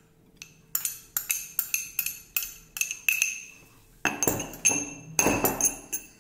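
Steel spoon clinking against a small cut-glass bowl: a quick run of sharp, ringing clinks, about four to five a second. About four seconds in, it turns louder and denser as the spoon scrapes and knocks chopped coriander out of the bowl.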